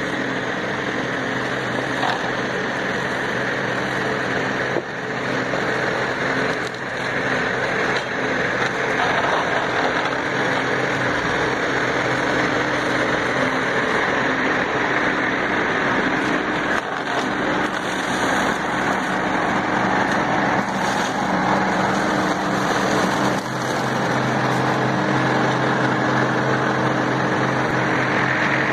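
New Holland 7630 tractor's diesel engine running steadily under load while its articulated boom mower's cutting head chews through roadside grass and brush, with a few sharp knocks. It grows gradually louder as the machine draws closer.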